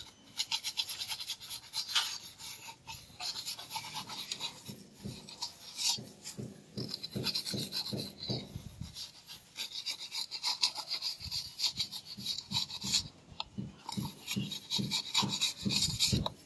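Rapid, repeated rasping strokes of a mason's hand tool scraping across mortar, with short breaks now and then.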